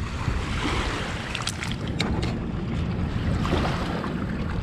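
Wind buffeting the microphone as a steady low rumble, with a few faint clicks about a second and a half and two seconds in.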